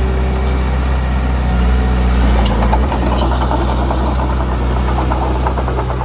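Heavy-machinery diesel engine running steadily, with a rapid metallic clicking and high squeaks joining in about halfway through.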